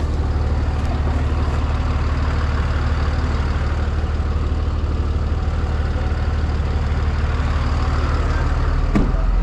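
Four-wheel-drive tow truck's engine running steadily with a deep, even hum. A short click comes about nine seconds in.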